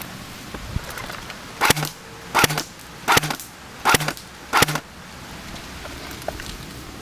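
Airsoft rifle firing five single shots in semi-auto, a little under a second apart, each a sharp crack with a short low whir.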